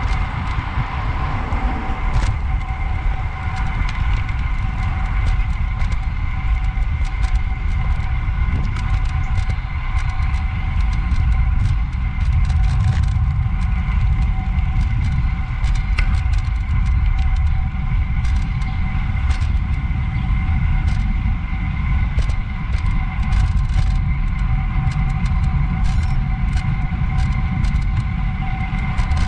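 Road bicycle being ridden on asphalt, heard from a handlebar-mounted camera: a steady low rumble of wind and road, a faint steady whine of several high tones, and scattered irregular clicks and ticks.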